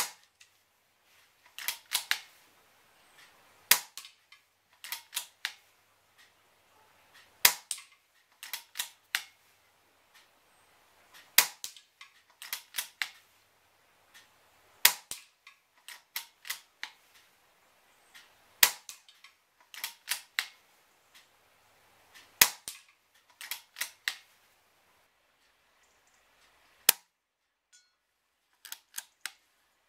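Weihrauch HW110 moderated PCP air rifle being fired at a steady pace, one sharp shot about every four seconds, with a few lighter clicks between shots as the bolt is cycled to index the next pellet from the magazine.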